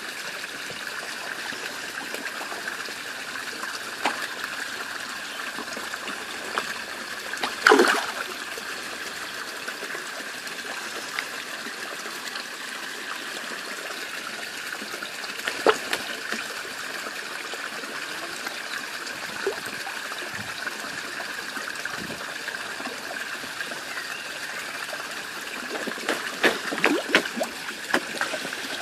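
Steady trickle of water running into a fish pond, with a loud splash about eight seconds in, another near the middle, and a flurry of small splashes and slurps near the end as a fish feeds on floating pellets at the surface.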